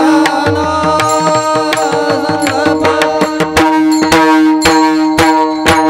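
Devotional bhajan accompaniment in a break between sung lines: tabla strokes and sharp percussion hits over steady held notes.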